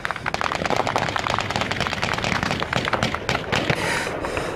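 Sustained automatic gunfire, several guns firing at once, with sharp shots overlapping at many a second without a break.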